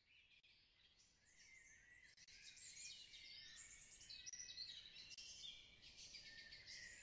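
Several songbirds singing at once, many quick chirps, trills and whistled slides, faint at first and fading in over the first few seconds.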